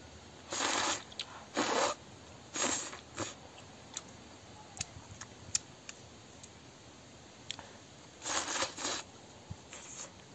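Rice noodles being slurped off chopsticks in short bursts: about four slurps in the first three and a half seconds, then another run about eight seconds in, with light clicks of chewing between.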